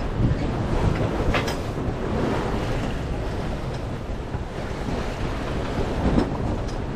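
Wind buffeting the microphone over water rushing along the hull of a heeled sailboat making hull speed. Two brief knocks come through, one about a second and a half in and one near the end.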